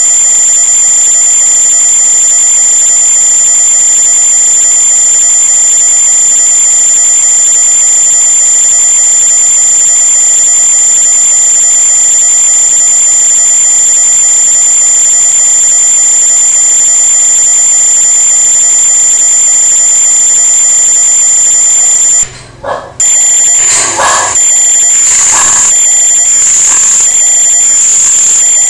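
A loud, steady high-pitched electronic whine, one unchanging tone. About 22 seconds in it cuts out for a moment, then comes back with a run of sharp knocks, roughly one a second.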